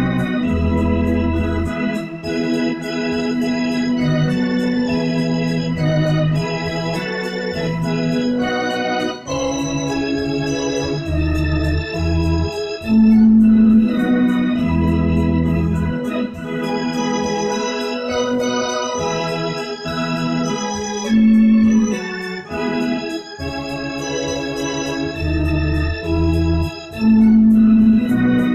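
Electronic keyboard played with an organ voice: sustained chords over held bass notes, changing every second or two in a slow hymn-like tune.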